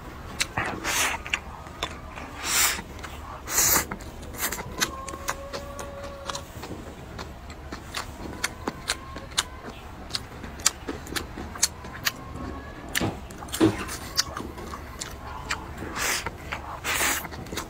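Close-up eating sounds of a person working through braised goose leg: wet chewing with many quick lip smacks and mouth clicks, and several louder hissing sucks and slurps, a group near the start and two more near the end.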